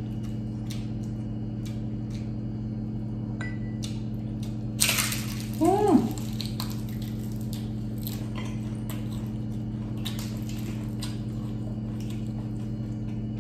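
Eating sounds: crispy fried chicken skin and chicharon being bitten and chewed, with small crunchy clicks throughout and one louder crunching bite about five seconds in, followed by a short 'mmm' that rises and falls. A steady low hum lies underneath.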